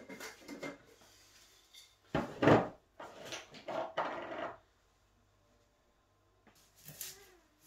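Kitchen containers and utensils being handled. There is a sharp knock about two seconds in, the loudest sound here, followed by rustling and clatter, a quiet stretch, and a few more knocks near the end.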